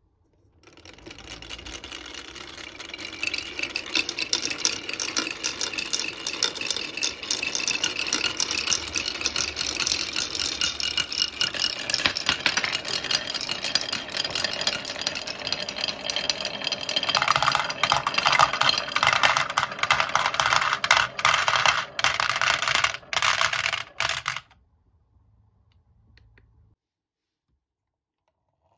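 Many marbles rolling and clattering down a HABA wooden marble run, a dense rattle of small clicks. It builds over the first few seconds, grows louder about 17 seconds in, breaks into stop-start bursts near the end and stops about 24 seconds in.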